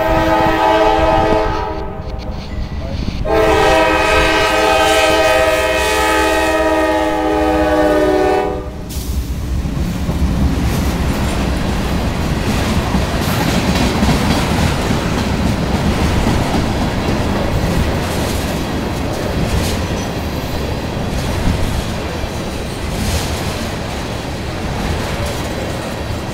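Freight locomotive's multi-chime air horn: a blast that stops about two seconds in, then a longer blast of about five seconds. After that the train's tank cars roll past with a steady rumble and clickety-clack of wheels on the rails.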